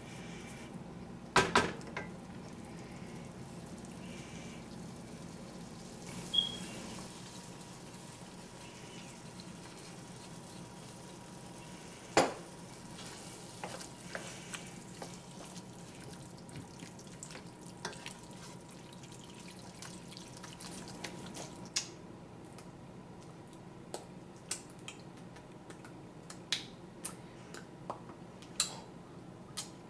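Wooden spoon stirring browned ground beef in a stainless steel pot, with a faint steady sizzle under scattered sharp knocks of the spoon against the pot, the loudest about a second and a half in and again about twelve seconds in.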